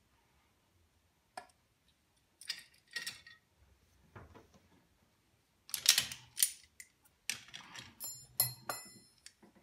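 Steel hand tools clicking, clanking and scraping as a brake-line flaring bar and yoke are handled and gripped with locking pliers: a few scattered clicks at first, then a cluster of louder clanks and scrapes in the second half, one with a short metallic ring.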